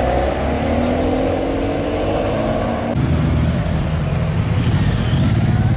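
Ferrari 599 GTB Fiorano's V12 engine running past with its revs rising. At about three seconds it gives way to a Ferrari 458 Italia's V8 running low and pulsing at low revs, growing louder near the end.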